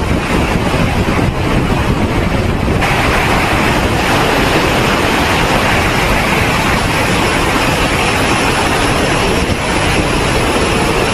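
Wind buffeting the microphone on a moving car, a loud, steady rush of air; it gets a little brighter about three seconds in.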